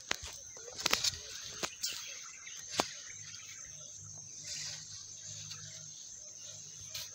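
A metal shovel scraping and striking through loose sawdust and biochar, with a few sharp hits in the first three seconds. Under it runs a steady high-pitched insect drone with faint chirps, and a low hum joins for a few seconds midway.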